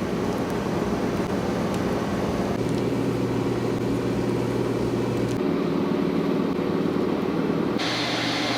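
Steady hum of running factory machinery, with a low drone, changing abruptly three times.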